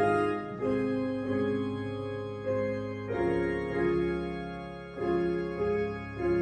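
Church keyboard playing slow, held chords that change about every second, each new chord struck and then fading a little.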